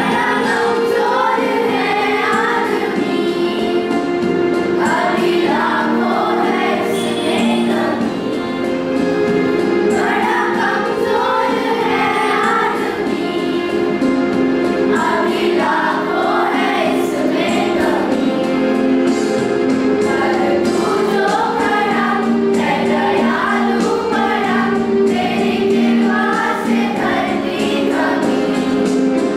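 A group of girls singing a song in unison, in phrases with short breaks, over a steady instrumental accompaniment of held chords.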